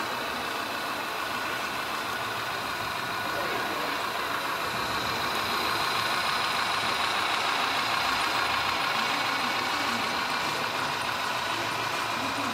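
Model Shay steam locomotive running with a string of log cars: a steady motor and gear whine over the rumble of wheels on the track, growing louder a few seconds in.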